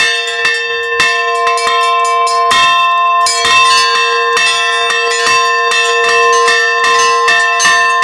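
Russian Orthodox church bells rung by hand from the belfry with ropes tied to the clappers: a quick, lively run of strikes on several small bells, several a second, with the bells' tones ringing on between the strokes. This is the festive ringing of Easter Week.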